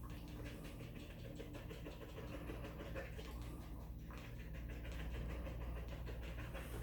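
Dogs panting hard and fast after overheating, a quick even rhythm of breaths over a steady low hum.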